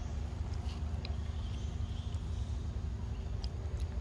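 Young macaque eating ripe mango close up: a few faint wet bites and mouth smacks over a steady low rumble.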